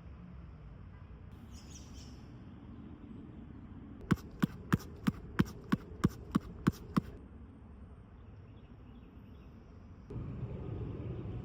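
A basketball dribbled ten times in a steady rhythm, about three bounces a second, each bounce a sharp smack on a hard court, with a faint steady outdoor hum and a few faint bird chirps in the background.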